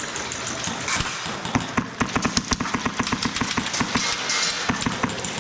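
Airsoft guns firing rapid strings of shots, about ten sharp clicks a second, thickest from about a second and a half in.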